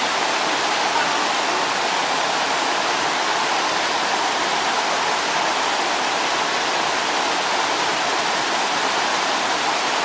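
Mountain stream rushing steadily over boulders: a continuous, even roar of moving water.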